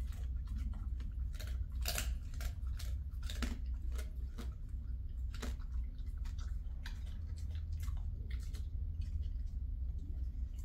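Dog chewing and crunching a dry treat: irregular crisp bites, thicker in the first half and sparser later. A steady low hum runs underneath.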